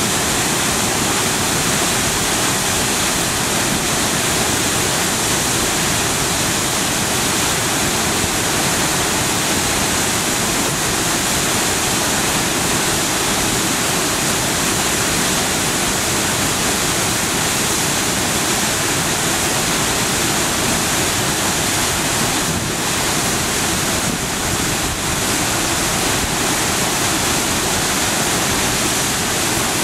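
Krimml Waterfalls, middle stage: a loud, steady rush of heavily falling water.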